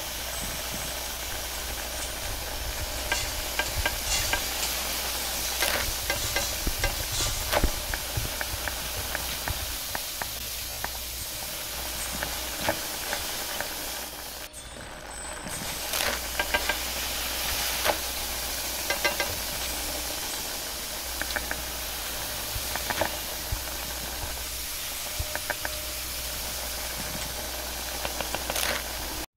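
High-output gas wok burner running with a steady hiss and low rumble while noodles sizzle in the wok, with repeated clinks and scrapes of a metal ladle and spatula against the pan. The sound drops out briefly about halfway through.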